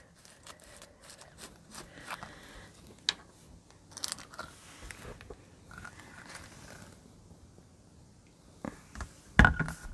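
Small handling noises of a plastic fragrance-oil bottle being opened: a screw cap twisted off and a foil seal picked at, giving scattered light clicks and scrapes. A short, louder noise comes near the end.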